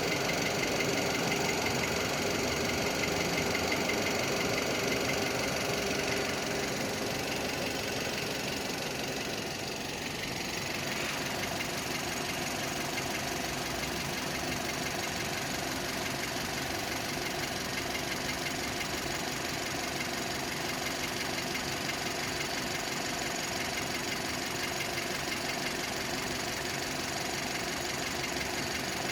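Skoda Octavia A7's 1.6 CWVA four-cylinder petrol engine idling with a knock under the hood, a fast steady knocking over the engine's running sound. It gets a little quieter about ten seconds in.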